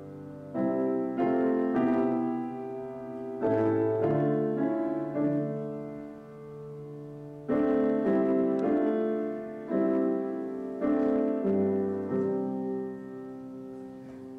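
Piano playing slow chords, struck in small groups and left to ring out between them.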